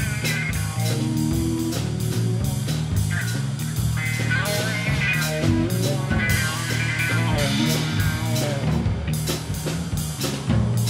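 Electrojazz band playing: electric guitar with effects playing gliding melodic lines over a steady bass and a drum kit keeping up regular cymbal and drum strokes.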